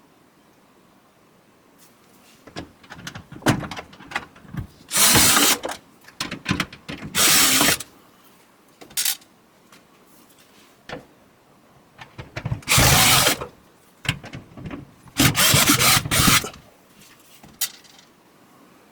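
Power drill-driver backing out Phillips-head screws from a dryer's panels. It runs in a handful of short bursts of about a second each, with small clicks and rattles in between.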